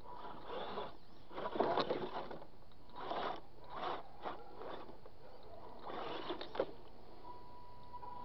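A radio-controlled trail crawler on dually tires crawls over a pile of weathered boards. There are irregular bursts of drivetrain whir and tires scraping and knocking on the wood, loudest about two seconds in, with one sharp knock later on.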